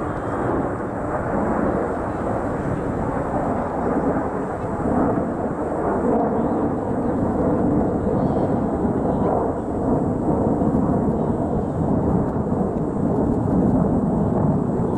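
Jet engines of a formation of T-50B aerobatic jets passing overhead, heard from the ground as a steady low rumble that swells and eases gently.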